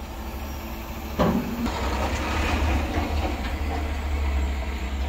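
Diesel dump truck running, with a sharp metal clank about a second in. After it the engine and the rattling body grow louder as the empty truck pulls away.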